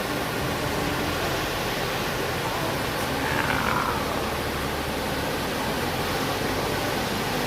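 Waterfall's steady rushing water. About three and a half seconds in, a brief higher sound slides downward over it.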